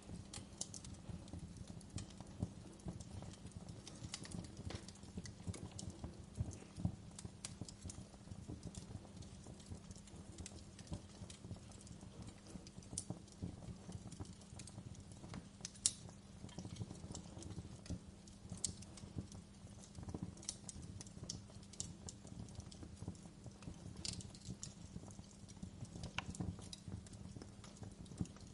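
Fireplace crackling: a dense low crackle with sharp pops scattered throughout, over a low steady rumble.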